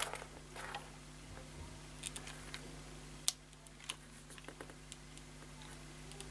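Hot glue gun being worked by hand: scattered faint clicks and small plastic taps, with one sharper click about three seconds in, under a steady low hum.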